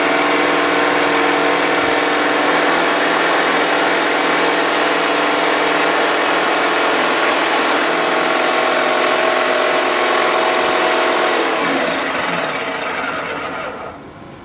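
DeWalt DW349 500 W jigsaw, mounted under a homemade table saw, running steadily. It is switched off about twelve seconds in and winds down.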